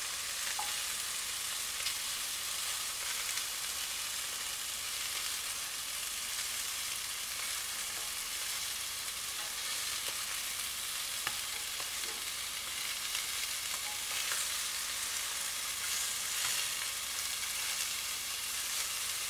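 Chicken wings frying in a little oil in a hot pan: a steady high sizzle with scattered small pops and clicks. The wings are being browned on the outside before water is added.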